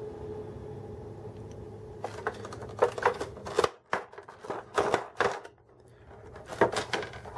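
Plastic packaging being handled and crinkled, a run of short crackles and rustles starting about two seconds in, over a steady low hum.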